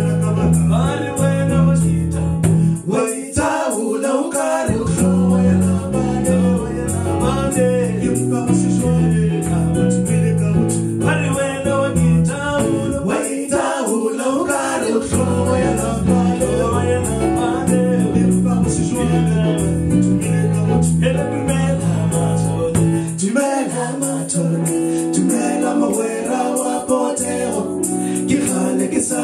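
A man singing over his own electric bass guitar, the bass plucking a rhythmic run of low notes under the voice. The low notes drop out briefly a couple of times and thin out near the end while the singing carries on.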